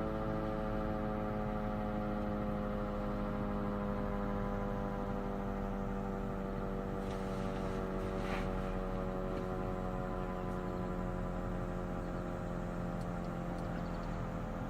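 Sterling M-10 8/16-port tornado siren winding down after a short alert, its tone falling slowly and steadily. A brief noise comes about halfway through.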